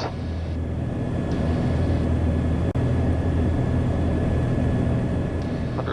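Cessna 421C Golden Eagle's twin piston engines and propellers droning steadily in the cabin in flight, with a faint steady high tone. There is a brief dropout near the middle.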